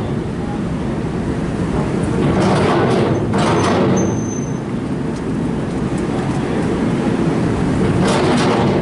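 Cars driving off a car ferry's loading ramp over a steady low rumble, with a swell of tyre and engine noise as a car passes about two and a half seconds in and again near the end. A brief high squeak about four seconds in.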